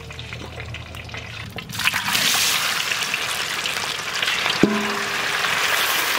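Paneer cubes frying in hot mustard oil in a large kadai: a quiet start, then a loud, steady sizzle that sets in about two seconds in as the oil bubbles up around the cubes. A short, low, steady tone sounds briefly about two-thirds of the way through.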